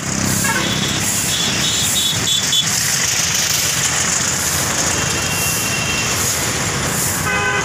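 Road traffic with trucks and auto-rickshaw engines running past, under a steady hiss of straw brooms sweeping dust across the road surface. A few short high-pitched tones sound about one to three seconds in.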